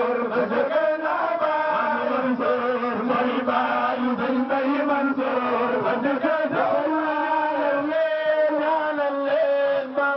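Men's voices chanting a religious devotional chant into microphones, amplified through a PA system. The sung lines hold and bend without a break.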